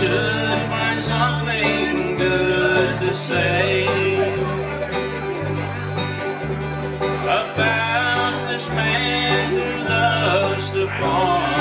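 Bluegrass band playing live on acoustic guitar, mandolin, banjo and acoustic bass guitar. The bass steps between low notes about once a second under quick picked string lines.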